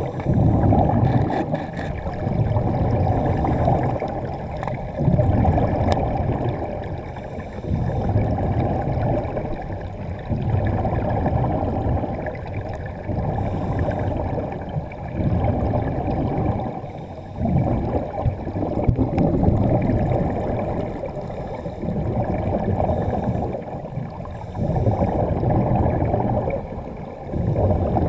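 Diver's exhaled air bubbling underwater from a scuba regulator: a rumbling gush of bubbles that swells and fades every two to three seconds, one gush per breath out.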